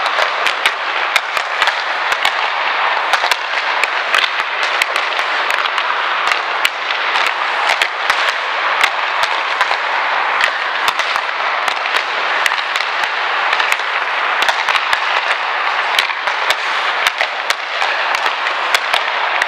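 Hockey sticks cracking against pucks in quick one-touch passes, many sharp irregular clacks a second, over a steady scraping hiss of skate blades on the ice.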